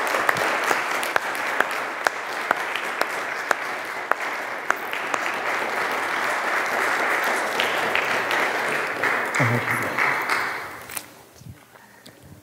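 Congregation applauding, dying away near the end.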